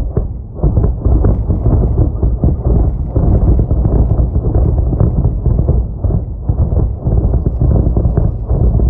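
Distant shelling: a loud, continuous low rumble made of many quick booms running into one another.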